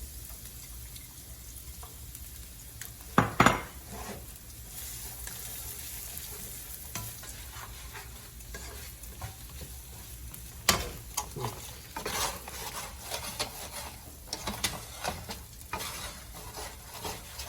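Ginger and garlic frying in hot oil in a wok, a steady sizzle, while a utensil stirs and scrapes against the wok. There is a loud knock about three seconds in and a run of clatters in the second half.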